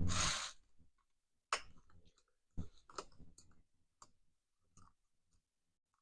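Small parts of a tractor starter switch being handled by hand as it is taken apart: a short hiss at the start, then a scatter of faint clicks and taps.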